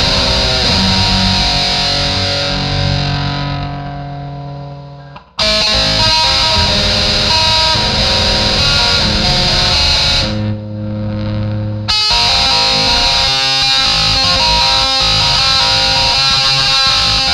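Electric guitar played through distortion, chords and riffs. About three seconds in, a chord is left to ring and fade out; the playing comes back in suddenly just after five seconds. Another chord is held briefly around ten seconds before the full sound resumes.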